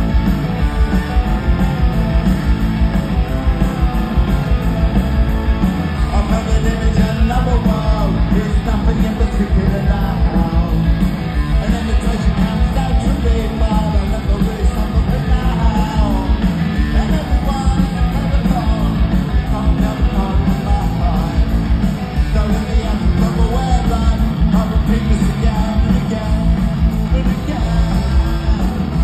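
A rock band playing live at high volume, recorded from within the crowd: drums, electric guitars and bass, with male lead singing.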